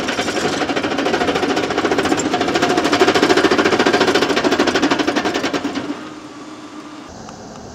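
Heavy machinery giving a loud, fast, even mechanical rattle, which drops to a quieter steady hum about six seconds in.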